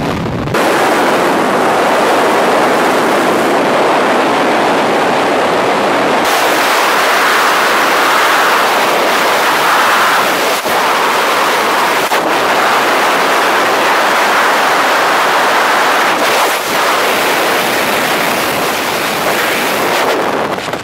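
Loud, steady rush of freefall wind buffeting a skydiver's helmet camera microphone, cutting in abruptly about half a second in.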